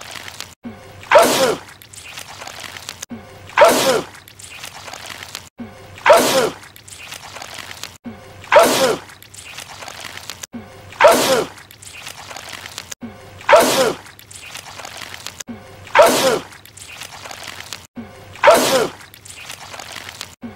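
A man's sneeze repeated eight times at an even pace, about one every two and a half seconds, each a sharp loud burst that falls in pitch: the same sneeze played over and over on a loop.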